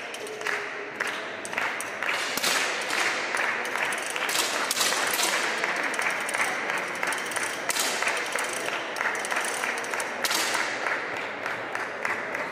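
Audience applauding: a dense, even clatter of many hands clapping.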